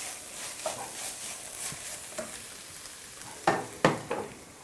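Ground lamb and peas sizzling in a stainless steel frying pan over high heat while a wooden spoon stirs them. Two sharp knocks come near the end.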